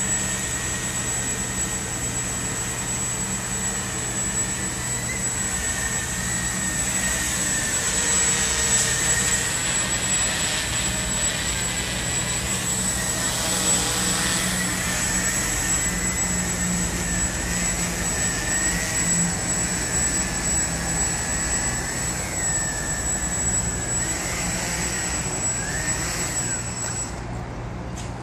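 Walkera QR X350 Pro quadcopter's electric motors and propellers buzzing steadily in flight, the whine wavering in pitch as it manoeuvres. Near the end the sound drops as it sets down.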